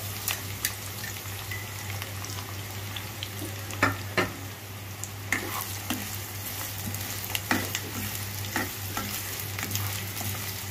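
Sliced onions sizzling in hot cooking oil in a pan, just added and starting to fry, with a spatula scraping and knocking against the pan now and then as they are stirred.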